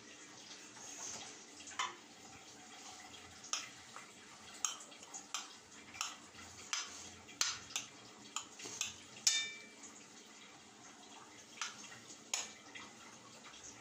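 Metal spoon clinking and scraping against a plate while mixing rice with chili paste, in scattered light taps. One clink about nine seconds in rings briefly.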